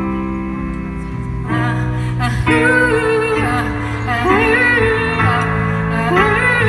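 Live band music played over a PA, with held guitar and cello chords that change every second or so. A wavering wordless vocal line comes in over the chords about two and a half seconds in and returns near the end.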